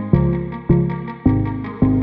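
Background music: a steady run of plucked, ringing notes, a new one struck about every half second and each fading away before the next.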